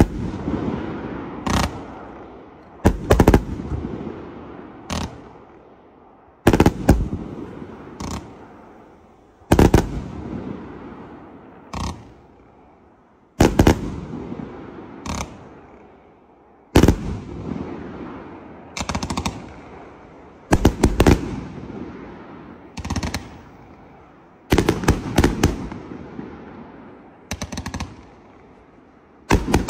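A 365-shot fireworks cake firing: sharp bangs every one to three seconds, some in quick clusters of two to four, each trailing off in a fading tail of echo.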